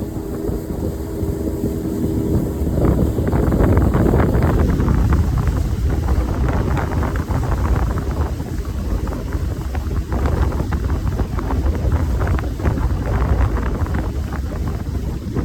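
Wind buffeting the microphone in a loud, uneven low rumble, with a steady motor hum in the first two or three seconds.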